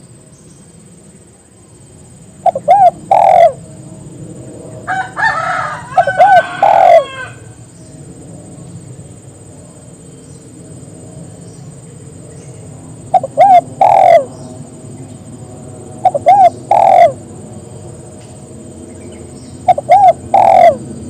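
Spotted dove (tekukur) cooing: four phrases a few seconds apart, each two short notes followed by a longer, louder one. A harsher, longer call from another bird comes between the first and second phrases.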